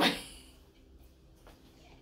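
A short breathy burst at the very start, then quiet room tone with a couple of faint ticks as a worn paper notebook is handled.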